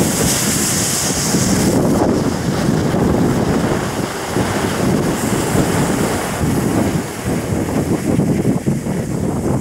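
About 32 firework smoke balls going off at once, a loud rushing hiss that sounds like a big burst of wind, like a 40-mile-an-hour wind. The sharp high part of the hiss drops away about two seconds in, leaving a lower rushing sound that goes on.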